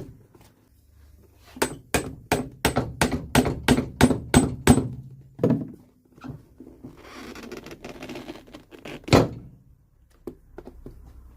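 Hammer blows knocking an old nailed-on heel block off a leather-soled golf shoe: a quick run of about a dozen strikes at roughly four a second, then a scraping stretch and one last loud strike. The heel is held by many nails underneath.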